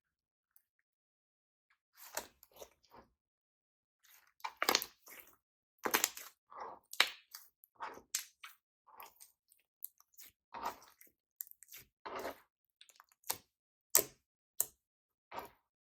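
Slime being worked by hand, squeezed, stretched and folded, giving irregular sticky clicks, pops and squelches. It starts after about two seconds of silence.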